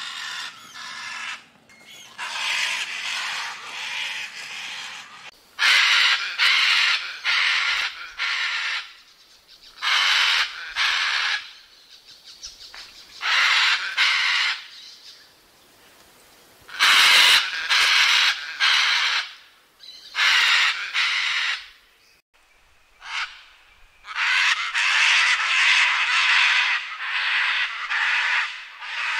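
Scarlet macaws screaming: loud, harsh, raspy squawks, sometimes in quick runs of several calls, with short pauses between bouts.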